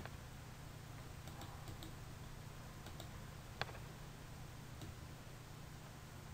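Faint scattered clicks of a computer mouse being worked, with one sharper click about three and a half seconds in, over a low steady hum.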